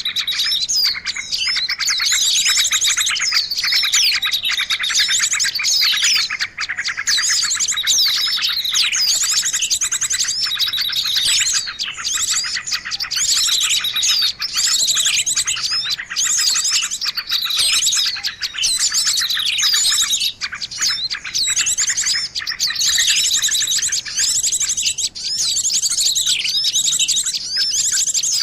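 Small songbirds singing without a break: a dense, fast chatter of chirps and quick whistled glides, with very fast high trills mixed in.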